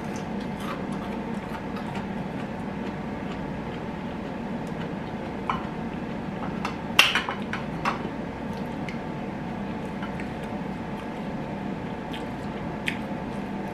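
Mouth-close eating: chewing, with a spoon clinking and scraping against a ceramic rice bowl and chopsticks tapping dishes in scattered sharp clicks, the loudest about seven seconds in. A steady low hum runs underneath.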